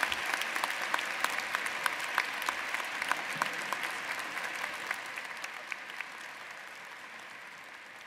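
Large audience applauding, with many sharp individual claps standing out, the applause dying away gradually over the last few seconds.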